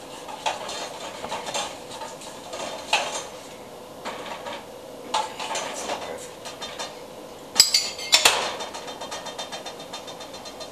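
Metal spoon stirring melted chocolate in a metal bowl over a pan of water, with light scrapes and clinks against the bowl. Two louder, ringing clinks of the spoon on the metal come about seven and a half and eight seconds in.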